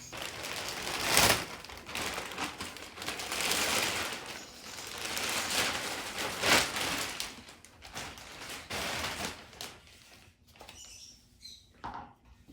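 Packaging rustling and crinkling as a cargo basket's box and wrapped parts are handled, with two louder sharp rustles, about a second in and about halfway through, then quieter handling near the end.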